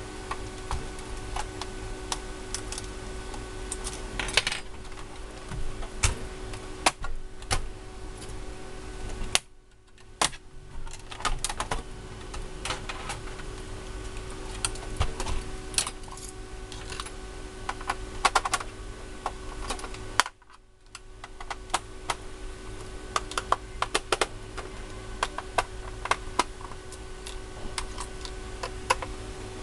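Irregular small clicks, taps and light rattles of a screwdriver, tweezers and the plastic and metal parts of a PlayStation 4 being handled as the console is taken apart, over a steady low hum. The sound drops out briefly twice.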